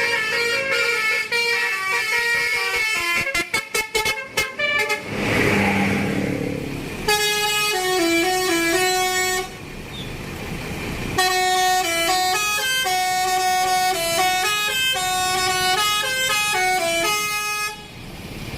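Tour bus telolet horn, a multi-tone horn playing tunes of stepped notes. It starts with a run of quick, chopped notes, then plays two longer melodies, one about two seconds long and one about six seconds long.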